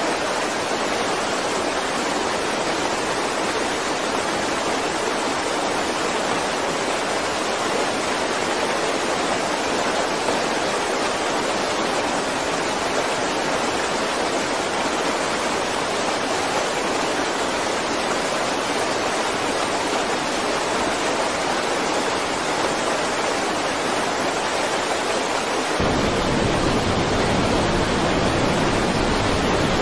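Steady rushing of rain-swollen water, an even hiss. About 26 seconds in it switches abruptly to a louder, deeper rush of muddy floodwater.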